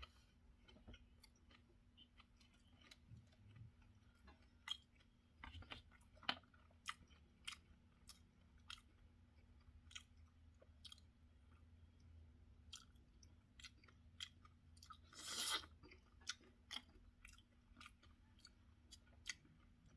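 Close-miked chewing with soft mouth clicks scattered throughout. About fifteen seconds in there is a louder noisy sound lasting about half a second.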